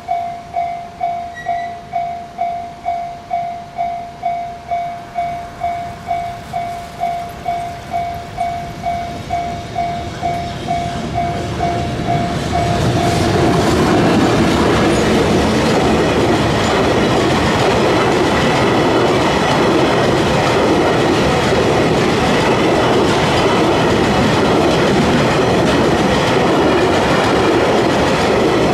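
Japanese level-crossing warning bell ringing, about two strokes a second. About 13 s in, a train reaches the crossing and runs through it. The loud, steady wheel-and-rail noise of the passing train then covers the bell.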